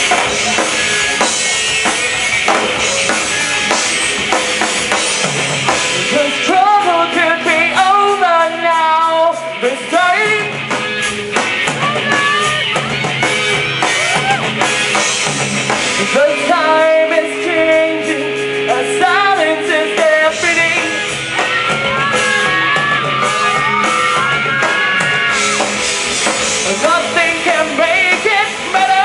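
Live rock band playing on stage: electric guitars, bass guitar and drum kit, with a singer's voice coming in about six seconds in. Twice the low end of the band thins out for a few seconds, leaving the singing over held notes.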